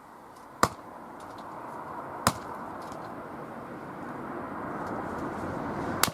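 Three sharp knocks, spaced unevenly (the second about a second and a half after the first, the third near the end), over a steady noise that grows gradually louder.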